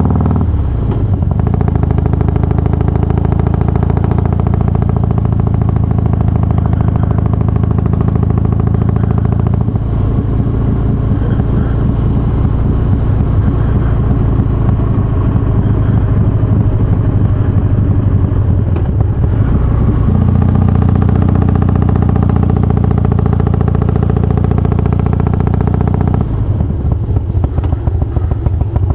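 Harley-Davidson Twin Cam 88 V-twin fitted with Feuling 525 cams and hydraulic cam chain tensioners, running steadily. Its engine note changes about ten seconds in, again around twenty seconds, and once more near the end.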